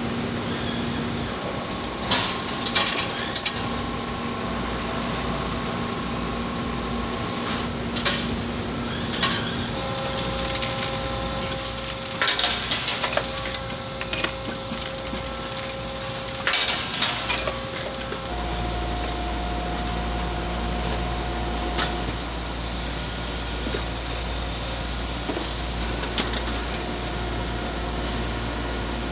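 Factory machinery humming steadily, with scattered clanks and clinks of steel pliers parts. The hum shifts in pitch and loudness twice, about a third and two-thirds of the way through.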